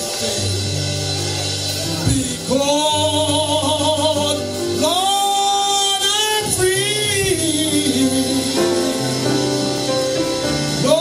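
Gospel singing over a keyboard accompaniment. The voice holds long notes with vibrato and slides between pitches above sustained low chords.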